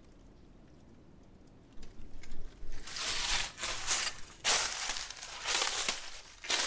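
Footsteps crunching through dry fallen leaves, about one step a second, starting about two seconds in.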